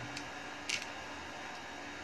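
A single light click about two-thirds of a second in, from small repair parts being handled by hand, over a steady background hiss.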